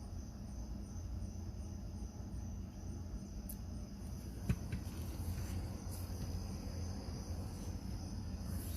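Crickets chirring steadily, with a low rumble underneath and a single faint click about halfway through.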